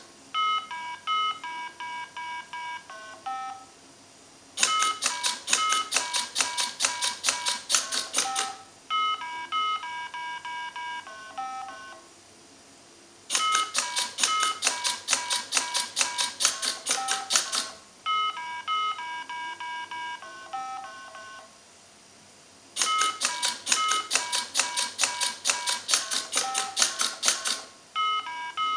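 Mini Simon electronic game beeping out a sequence of short tones at its few fixed pitches. A robot then presses the buttons back with rapid mechanical clicking, about five clicks a second, over the game's answering beeps. The round of beeps and then clicks goes three times.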